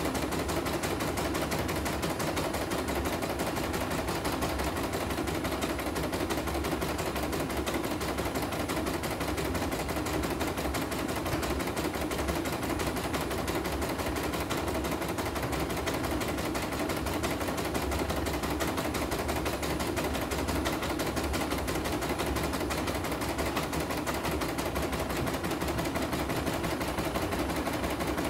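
CNY E900 computerized embroidery machine stitching a design, its needle going up and down in a fast, even rattle without pause. It is a test run after a repair for a dead machine whose needle would not rise (new power supply, rotary hook and bobbin case), and the machine is working without trouble.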